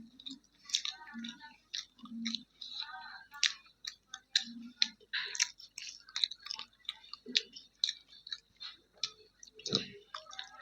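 Close-miked chewing of kadhi pakoda with roti: a fast, irregular run of wet mouth smacks and clicks.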